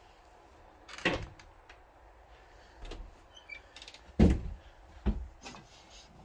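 Four scattered knocks and thuds, the loudest and deepest about four seconds in.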